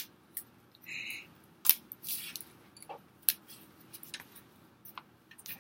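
Wooden popsicle sticks being bent and woven together by hand under tension into a stick bomb: scattered small clicks and taps of wood on wood, with a brief squeak about a second in.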